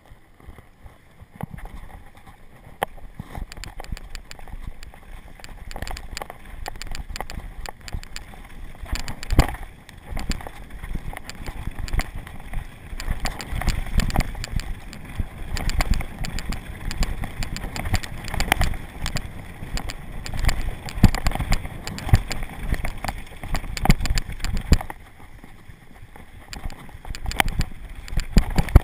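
Downhill mountain bike ridden fast over a dirt and gravel trail: steady tyre and rolling noise with a low rumble, with many rattles and knocks from the bike over bumps. It starts about a second and a half in, after a quieter moment at the start.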